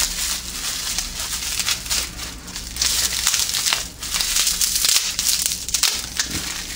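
Bubble wrap crinkling and crackling as hands unwrap it from a rod, in uneven spurts with brief pauses.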